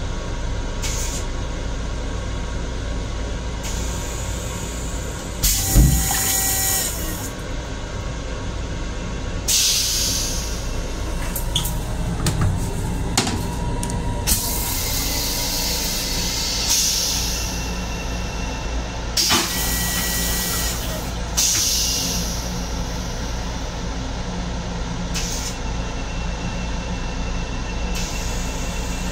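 Steady low rumble of an LIRR M7 electric railcar heard from inside its restroom, broken by repeated short bursts of air hiss a few seconds apart.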